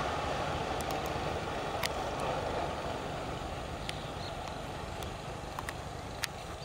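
Low rumble of a freight train running away into the distance, fading steadily, with a few sharp clicks scattered over it.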